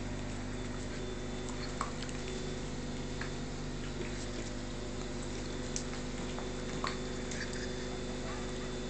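A wire fox terrier snapping at soap bubbles, a few short sharp snaps and clicks scattered through, over a steady mechanical hum.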